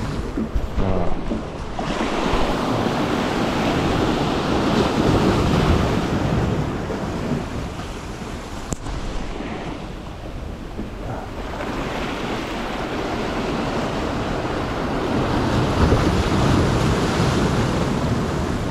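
Sea waves surging and breaking against the boulders of a rocky breakwater, the water foaming between the rocks, rising and falling in swells. Wind rumbles on the microphone underneath.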